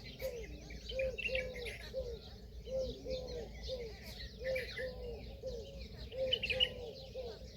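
Peahen (Indian peafowl) giving a steady run of short, low arched calls, about two or three a second, with small birds chirping higher up.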